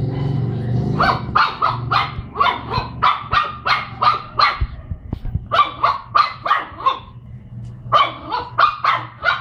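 Puppy play-barking: three quick runs of short, sharp barks, several each second, starting about a second in.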